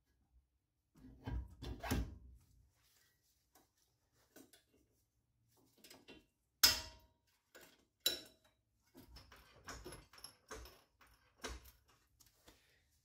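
Scattered clunks and knocks of a coilover strut being handled and fitted into the wheel hub. There is a sharp, loud clack about seven seconds in, another about a second later, and lighter knocks around them.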